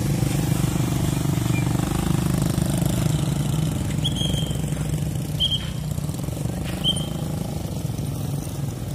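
Small motorcycle engines running close by as riders pass slowly, louder in the first half. From about four seconds in, a traffic whistle gives three short blasts about a second and a half apart.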